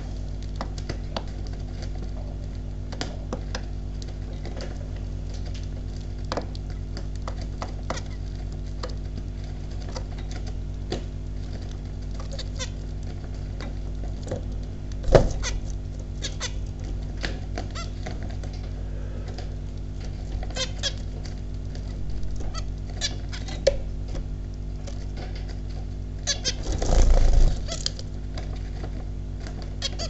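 Zebra finches moving about a wire cage: scattered light clicks and taps, with a few short calls, over a steady low hum. There is a sharp knock about halfway through and a louder rustling flurry of about a second and a half near the end.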